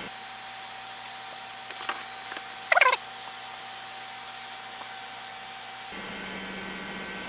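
Fast-forwarded steady bench hum, raised in pitch so that it sounds like a small power tool running, with a brief squeaky chirp near the middle. At about six seconds the playback returns to normal speed and the sound drops to a lower steady hum.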